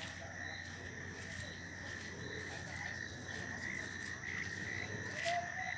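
Night chorus of frogs and insects: a steady high-pitched trill that pulses slightly and keeps going.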